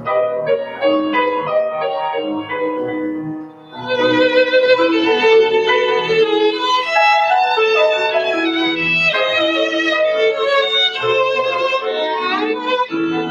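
Violin and piano duo. The piano plays alone for the first few seconds, then the violin comes in about four seconds in, bowing a melody with vibrato over the piano accompaniment.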